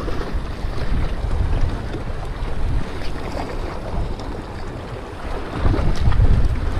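Strong sea wind buffeting the action camera's microphone in a low rumble, over waves washing against shoreline rocks; the wind gusts harder near the end.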